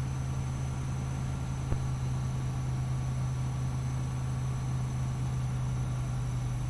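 Light single-engine aircraft's piston engine and propeller droning steadily on final approach, heard inside the cockpit. A single brief click about 1.7 seconds in.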